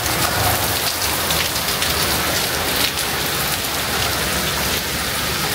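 Heavy rain falling hard and steady in a downpour.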